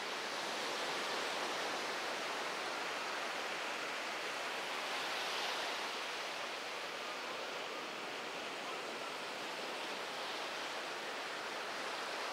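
Ocean surf washing on the beach, a steady even hiss that swells a little about five seconds in.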